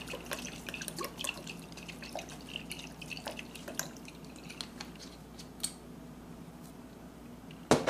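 Worcestershire sauce shaken from its bottle's dripper top onto ground bison: a run of faint, irregular drips and splats that thins out after about four seconds. A single sharp knock near the end.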